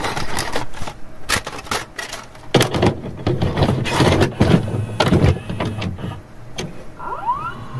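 VHS-style intro glitch sound effects: a run of irregular bursts of static-like tape noise and clicks, with a short rising whistle near the end.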